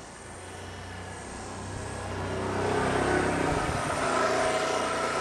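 Small electric E-sky Honey Bee RC helicopter flying, its motor and rotor whine growing steadily louder as it comes low toward the microphone.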